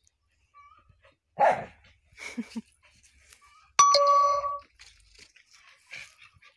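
A dog tugging at a rope hung from a tree, making a loud short sound about a second and a half in and smaller sounds after it. Near four seconds there is a sharp metallic clink that rings briefly.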